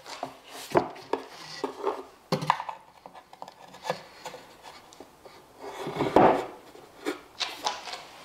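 Knocks, taps and wood-on-wood rubbing as a plywood trammel board carrying a palm router is handled and set down over a centre nail on a plywood blank, with a louder scrape and thud about six seconds in. The router is not running.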